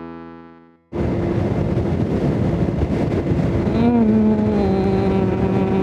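Brass music fades out in the first second, then the on-board sound of a 150cc scooter being ridden starts abruptly: wind rush over a steady engine tone. About three seconds in, a stronger engine note bends briefly and then holds.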